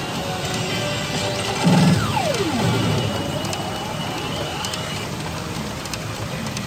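e Lycoris Recoil pachinko machine playing its music and sound effects during right-side shooting. A louder hit about 1.7 seconds in is followed by a falling sweep.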